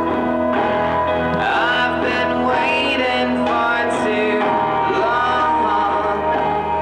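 Music: a voice singing over held instrumental notes, its pitch wavering and gliding in the middle stretch.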